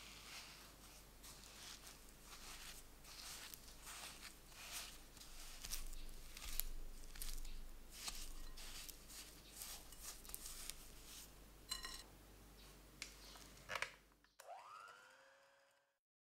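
Silicone spatula pressing and scraping butter and sugar against a glass bowl, a quiet, irregular series of gritty squishing strokes about one or two a second. A short whine that rises and then levels off comes near the end.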